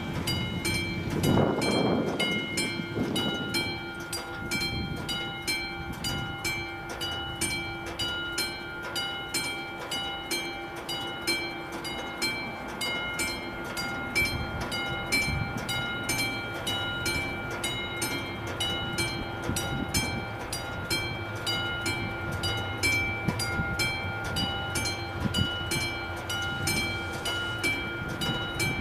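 Level-crossing warning bell of the classic mechanical type, ringing in fast even strokes, about three a second, with a bright metallic ring. It sounds with the flashing red lights and warns that a train is approaching and the crossing is closed.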